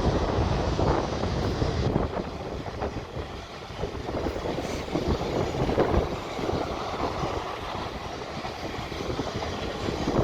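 A pair of Class 444 electric multiple units passing through the station at speed: a steady rumble of wheels on rail, loudest at first and easing a few seconds in. Wind buffets the microphone.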